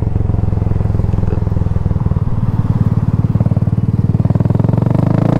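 Yamaha XMAX 250 scooter's single-cylinder four-stroke engine running under way, a fast, even throb; the engine note shifts about four seconds in.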